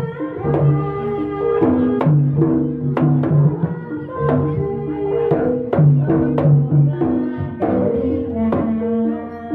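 Javanese gamelan music accompanying a jaranan trance dance: tuned percussion rings out in a repeating melodic pattern over sharp drum strokes.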